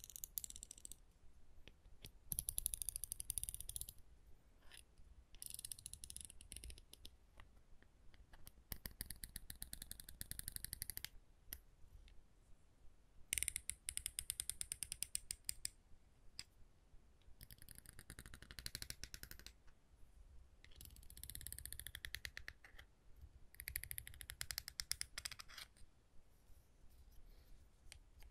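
Tapping on small wooden objects in quick runs of crisp ticks, about eight runs of one to two seconds each with short pauses between.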